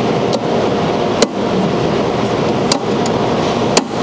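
Steady mechanical noise with four sharp metallic clicks spread through it, as the pressure arm on the wire feeder's drive rollers is clamped down onto the welding wire.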